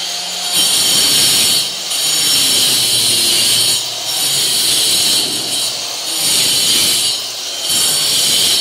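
Handheld angle grinder with a cutting disc cutting a groove into a concrete block wall to chase in electrical conduit: a loud, high-pitched grinding that drops off briefly a few times.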